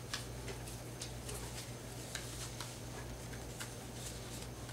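Faint scattered clicks and light rustles of paper and packaging being handled, over a steady low electrical hum.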